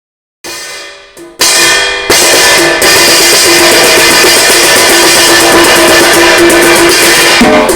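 Samsung Galaxy S3 ringtone playing: a tune with drums and guitar that opens with a few short notes and swells into a full, loud band sound about two seconds in.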